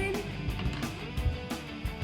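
Background music, guitar-led with a steady beat.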